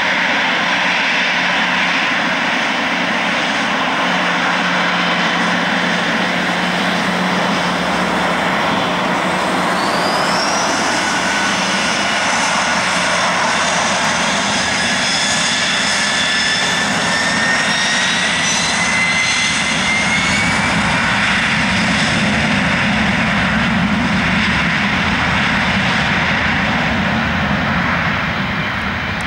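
Airbus A321-212's CFM56 turbofan jet engines running loud and steady as it lines up. About ten seconds in, a rising whine comes in as the engines spool up for takeoff. After about twenty seconds the sound grows lower and fuller as the airliner rolls away down the runway.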